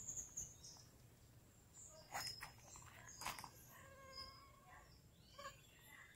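Faint animal call, a short pitched cry with several overtones about four seconds in, with two soft knocks shortly before it.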